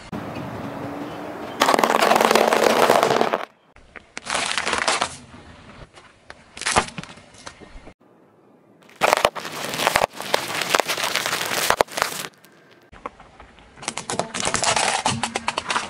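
Car tyre rolling over and crushing small objects on asphalt: sharp cracks and dense crackling from breaking plastic toys and crushed food packaging, in several short segments that cut abruptly from one to the next.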